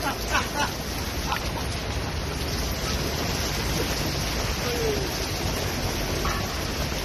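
Heavy rain falling in a steady hiss over a flooded street.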